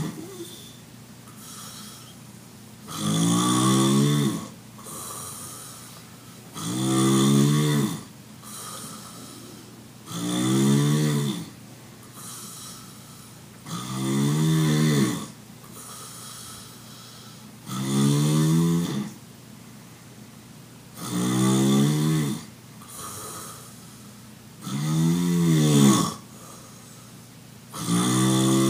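A person snoring loudly and regularly in sleep: one long, pitched snore about every three and a half seconds, eight in all, with a softer breath between each.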